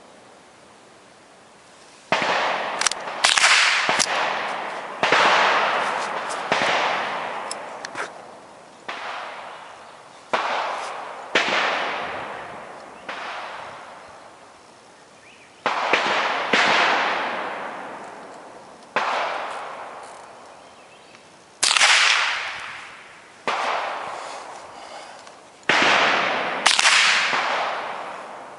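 Ruger 10/22 .22 LR semi-automatic rifle fired shot by shot at irregular intervals, about twenty shots, each with a long echoing tail.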